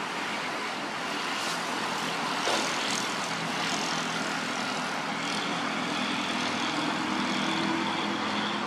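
A steady engine drone over a broad hiss, with a few brief crackles in the first half.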